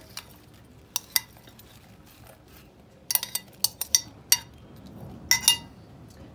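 Metal spoon and glass bowls clinking as diced apple is scooped and tipped from one glass bowl into another. There are two clinks about a second in, a quick run of clinks between three and four and a half seconds, and a louder pair a little after five seconds.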